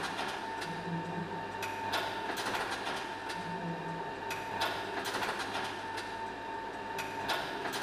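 Slide projector running: a steady motor hum with a constant high whine, broken by irregular mechanical clicks about twice a second and a short low thrum every few seconds.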